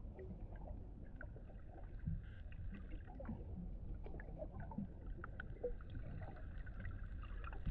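Water lapping, over a low steady rumble with scattered faint clicks.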